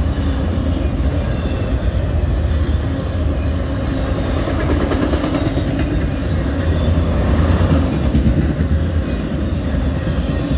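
Loaded autorack freight cars rolling past: a steady rumble of steel wheels on rail, with a few faint clicks.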